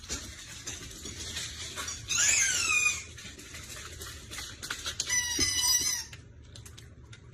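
Two high-pitched squeals during a dog's game of fetch: one slides down in pitch about two seconds in, and the other is held for about a second near the five-second mark.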